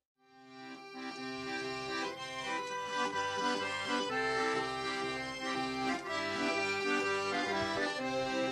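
Piano accordion, a Paolo Soprani, playing a traditional folk tune: sustained chords under a moving melody, fading in from silence just after the start.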